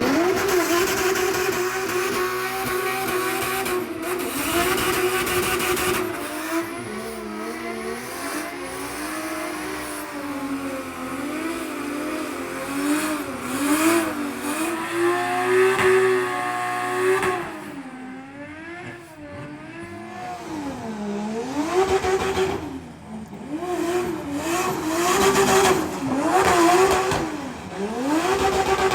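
A car engine revving hard, its pitch climbing and dropping again and again through the gears, as in fast driving, with a quieter, choppier stretch about two-thirds of the way through.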